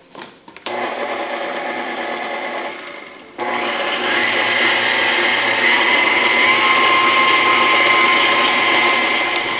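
Electric stand mixer running with a dough hook, kneading flour and water into bread dough. The motor starts under a second in, dips briefly, then runs louder and steady from about three seconds in.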